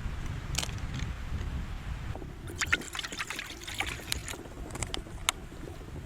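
Strong wind rumbling against the microphone, with scattered sharp ticks and crackles that cluster from about two and a half to four and a half seconds in.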